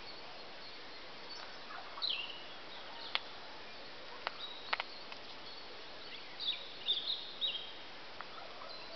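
Wild birds calling over a steady outdoor background hiss: short, twittering calls about two seconds in and a cluster of them near the end, with a few sharp clicks in between.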